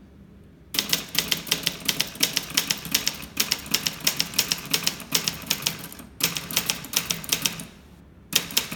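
Signature 513 portable manual typewriter (a Brother-built JP-3 series machine) being typed on: fast runs of sharp clacking key strikes, about five or six a second. The typing starts about a second in, breaks briefly twice and picks up again near the end.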